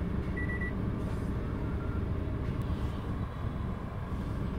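Car engine idling, heard from inside the cabin as a steady low rumble. A short high beep sounds about half a second in, and a fainter one just before two seconds.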